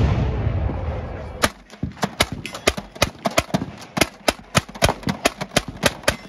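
A heavy blast's low rumble fades away, then a replica M1862 .58-calibre hand-cranked Gatling gun fires a steady string of sharp shots, about five a second, as the crank is turned.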